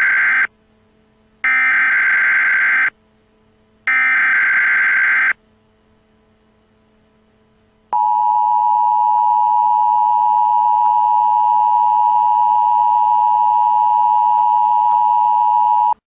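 Emergency Alert System broadcast header: three short bursts of buzzing digital data tones, each about a second and a half long, then after a pause of about two and a half seconds the steady two-tone attention signal, held for about eight seconds and cutting off sharply. These are the SAME header and the attention tone that announce an emergency alert broadcast.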